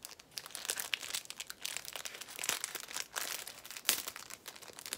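Packaging crinkling and crackling in the hands as it is handled and opened: quick, irregular crackles throughout, with a louder one about four seconds in.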